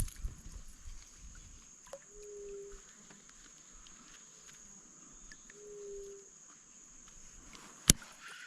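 Steady high-pitched insect chorus, with a low hooting animal call repeating about every three and a half seconds and a single sharp knock near the end.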